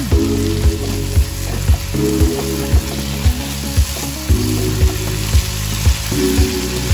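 Onion-tomato masala paste sizzling as it fries in a nonstick pan while stirred with a spatula. Background music with a steady beat, about two beats a second, plays along.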